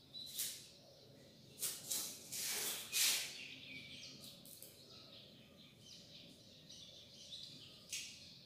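Whiteboard marker writing on a whiteboard: a run of short scratchy strokes, the loudest and longest about two to three seconds in, then lighter strokes and a last one near the end.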